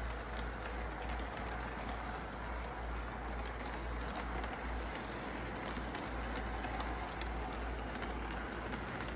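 Toy electric train running on its plastic track: a steady low hum and hiss with scattered light clicks from the wheels and cars, under steady background noise.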